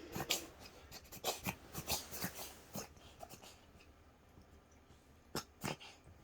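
A cat sneezing: a quick string of short, sharp sneezes through the first three seconds, then two more close together near the end.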